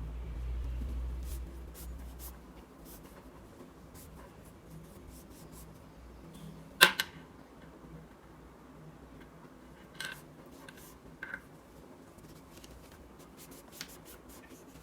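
Faint rustling and handling noise from a cloth being rubbed along a Lightning cable, with a low rumble over the first two seconds. A sharp click comes about seven seconds in, and a few softer clicks follow later.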